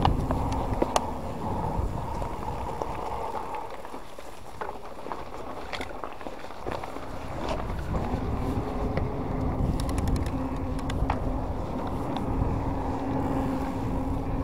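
Wind buffeting the microphone and tyres rolling over the path during an e-bike ride. A steady hum from the e-bike's motor fades out a couple of seconds in and returns about halfway through. Scattered clicks and knocks come from the bike over the bumps.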